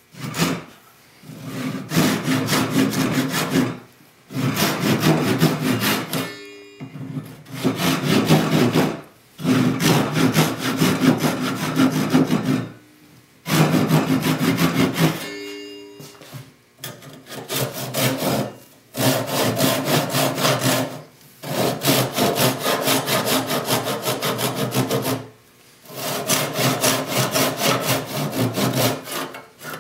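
Gyokucho ryoba, a double-edged Japanese pull saw, sawing into a Sipo (African mahogany) hardwood tenon. It cuts in quick, rapid strokes, in runs of one to three seconds broken by short pauses.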